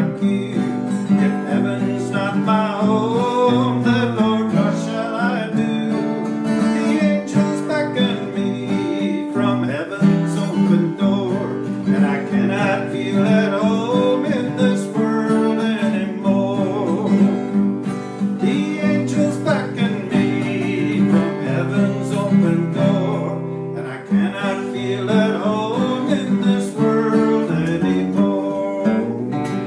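Acoustic guitar strumming together with an organ, playing a gospel hymn tune as an instrumental passage: held organ chords under a moving melody.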